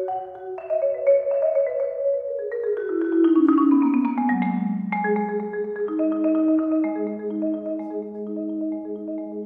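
Solo marimba played with four mallets: a run of notes falling steadily in pitch, then from about five seconds in a low chord held as a sustained roll.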